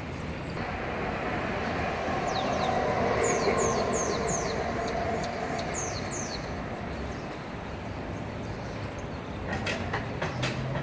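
Street traffic passing, its noise swelling to a peak a few seconds in and fading, with a run of short, high, falling squeals around the middle. A few sharp clicks come near the end.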